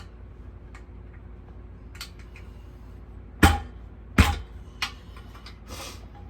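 Metal hand tools clinking and knocking against the mini bike's engine parts during teardown: a few light taps, then two louder clanks a little under a second apart past the middle, over a low steady hum.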